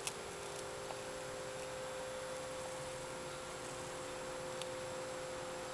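A steady, unchanging hum over a constant hiss, with a sharp click right at the start.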